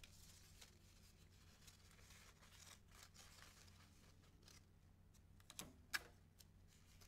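Near silence with faint rustling of paper strips being handled, and one sharp click about six seconds in as a desk tape dispenser is picked up.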